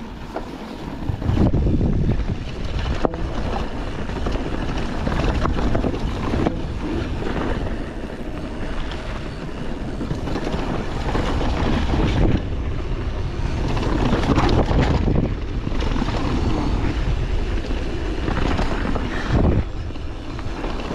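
Wind rushing over the microphone and tyres rumbling over rough dirt as a mountain bike descends a downhill trail. Sharp knocks and rattles from the bike hitting bumps stand out several times, among them about three seconds in and near the end.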